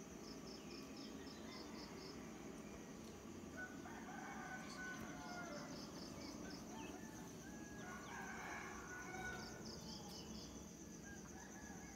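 Roosters crowing faintly, about four seconds in and again about eight seconds in, over a steady high chirring of night insects with short runs of pulsed chirps.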